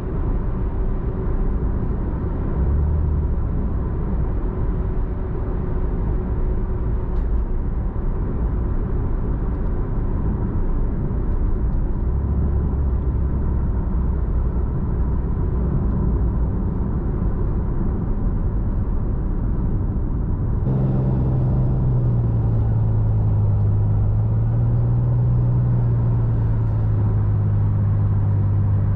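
Toyota Supra MK4's 2JZ straight-six running as the car is driven, heard from inside the cabin: a steady low engine drone over road noise. About two-thirds of the way through the sound changes abruptly to a stronger, steadier low engine hum.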